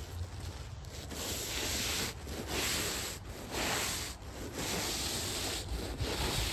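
A snow pusher's cutting edge scraping along an asphalt driveway as it is pushed through heavy wet snow on a hand truck. It makes a rough, rasping hiss in surges about a second long, with short dips between them.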